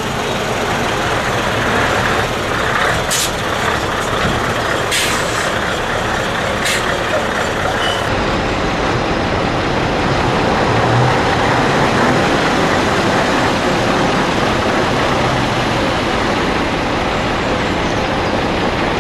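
Scania V8 truck engine running at low revs, with three short, sharp air hisses of the kind air brakes make, about three, five and seven seconds in.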